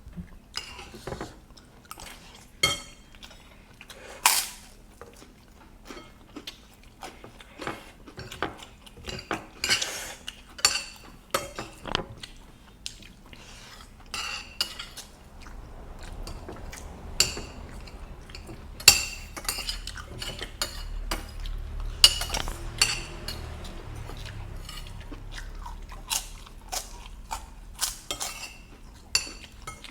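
Spoon and fork clinking and scraping against a plate in irregular sharp clicks, with chewing between them. A low rumble sits under the middle stretch.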